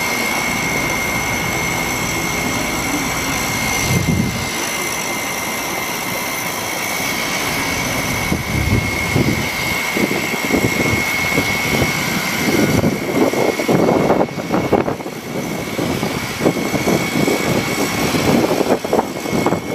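An engine running steadily with a constant high whine; from about eight seconds in, uneven low rumbling surges come and go over it.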